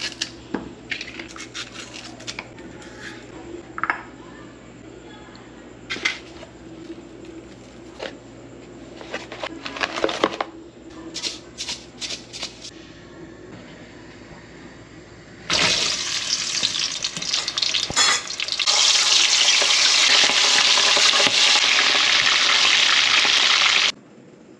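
Clicks and knocks of kitchen handling at first, then, about fifteen seconds in, a loud steady sizzle of fish frying in hot oil that cuts off sharply near the end.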